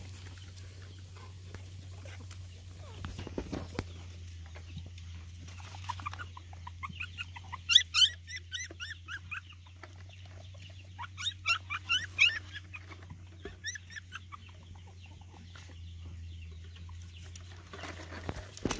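Short, high-pitched animal calls in two quick spells of several seconds, over a steady low hum.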